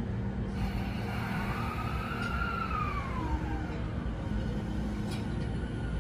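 E217-series electric train starting to pull away, its inverter and traction motors giving a whine that rises, then falls away in pitch, over a steady low hum. A short click comes about five seconds in.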